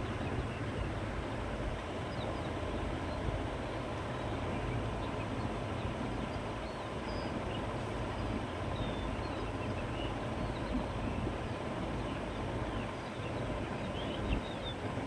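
Steady countryside wind blowing through grass and trees, with a low rumble underneath. Faint, short bird chirps come and go, a few more near the end.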